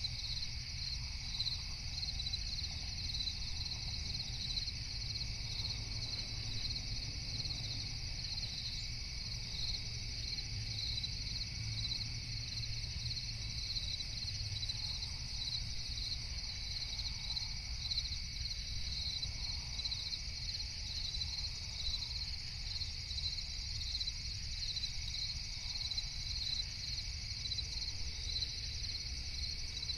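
Crickets chirping in an even, unbroken rhythm over a steady low rumble.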